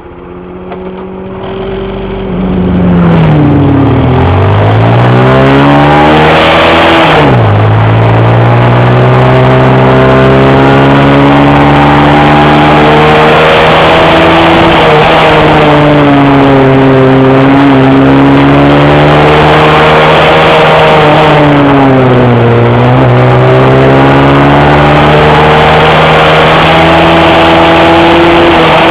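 Honda Cub's single-cylinder four-stroke engine under way, revs rising and falling as the bike is ridden through a run of bends. The pitch drops suddenly about seven seconds in, the way it does at a gear change, and dips again where it eases off for corners.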